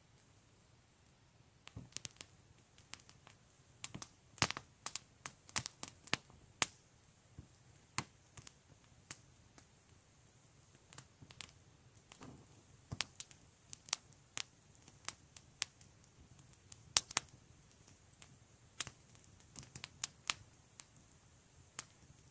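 Wood campfire crackling: irregular sharp pops and snaps, sometimes several in quick succession, over a quiet background.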